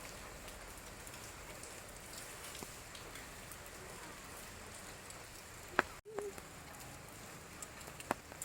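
Steady patter of rain, with a few sharp drop-like clicks; the sound drops out completely for an instant about six seconds in.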